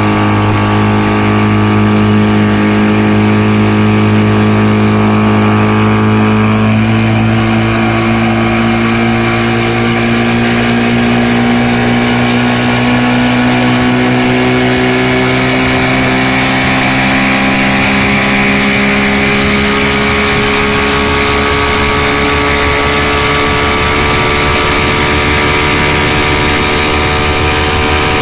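1970 Mercury 20 hp two-stroke outboard motor running steadily. Its pitch creeps slowly upward after the first several seconds as the engine speed rises.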